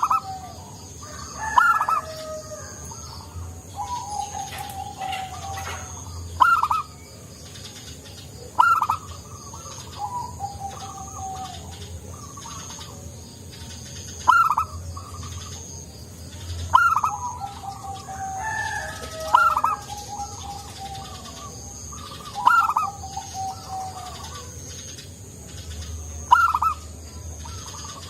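Zebra dove (perkutut) singing its cooing song over and over, a phrase every two to three seconds, each a sharp higher note followed by lower rolling coos.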